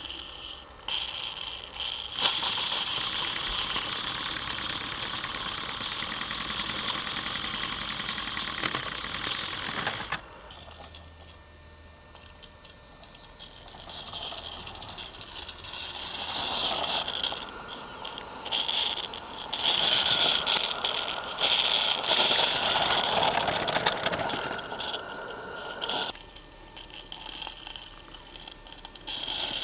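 Small live-steam garden railway locomotive, a Roundhouse Katie, hissing steam steadily for about the first ten seconds. After a quieter spell the hiss comes back louder and more uneven, with rattling, as the locomotive works.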